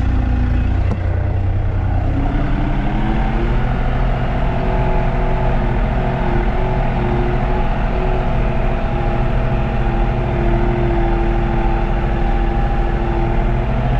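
Tractor engine running steadily while hauling hay; its tone shifts about two seconds in, then holds.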